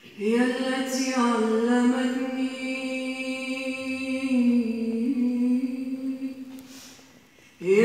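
A woman singing one long held note with small ornamental turns in pitch, fading out about seven seconds in; a new sung phrase begins just before the end.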